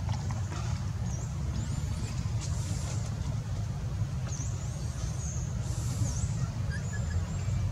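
Outdoor ambience: a steady low rumble with faint, high-pitched chirps and swooping squeaks every second or two.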